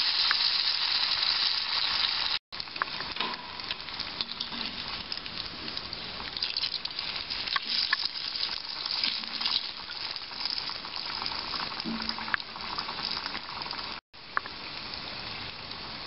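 Batter-coated potato vada deep-frying in hot oil in a kadhai: a loud sizzle at first, then a quieter steady sizzle with scattered pops and crackles. The sound cuts out for a moment twice.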